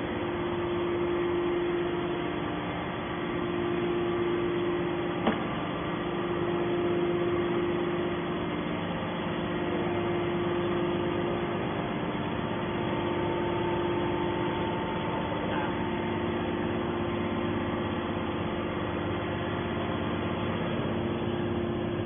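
Hydraulic power unit of a scrap metal baler running at rest: a steady hum with a strong constant tone, and one sharp click about five seconds in.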